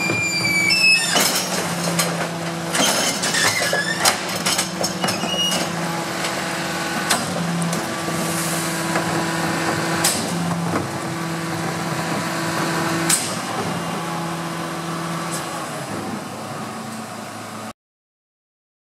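Rear-loading garbage truck's hydraulic bin lifter tipping a plastic wheelie bin into the hopper, with knocks and clatter from the bin and lifter over the first few seconds. Under it is a steady hydraulic hum that switches on and off in stretches as the lifter and compactor cycle. The sound cuts off abruptly near the end.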